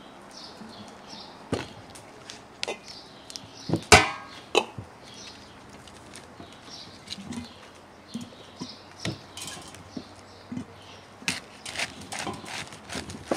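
Kitchen knife chopping and cutting on a wooden cutting board, with a white cabbage being torn apart and cut: scattered sharp knocks, the loudest about four seconds in.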